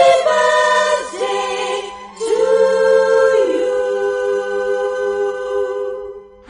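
Choir-like singing in long held notes: one phrase ends about two seconds in, then a new phrase begins with a long steady note that drops to a lower held note.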